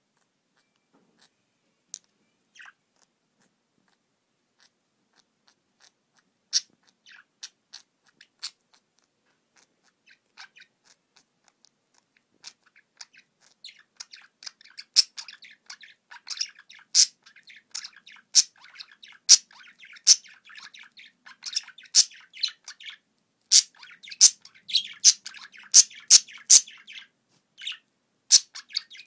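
Two male budgerigars in breeding condition chattering and warbling while beak-kissing, with sharp ticks. For the first dozen seconds there are only scattered ticks, then the soft continuous chatter builds and the loud ticks come about once or twice a second.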